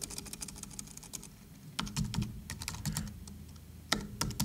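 Typing on a computer keyboard: irregular keystrokes in short runs, with a pause of about a second near the start.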